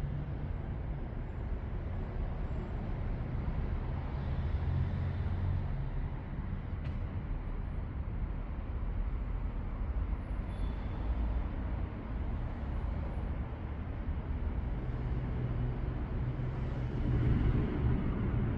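Steady low rumble with a fainter hiss over it, the background noise of a large vaulted underground cistern.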